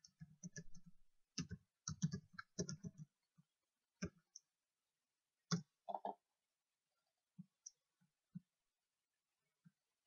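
Computer keyboard being typed on: a fast run of keystrokes over the first three seconds, then a few scattered single clicks.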